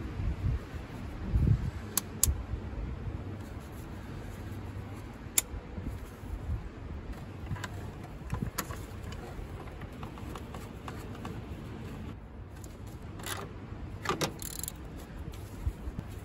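Hands working a plastic coolant expansion tank and its hose into place in a car's engine bay. Scattered sharp clicks and knocks of plastic and metal, with a short metallic rattle of tools near the end.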